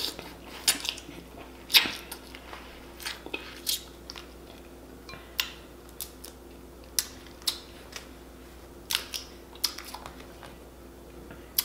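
Close-up eating of snow crab legs: the shells are cracked and pulled apart by hand, with about ten short sharp snaps at irregular intervals among chewing and lip-smacking.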